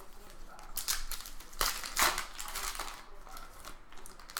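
Trading cards and card-pack wrappers being handled: a run of rustles and crinkles, with the sharpest ones about a second and a half and two seconds in.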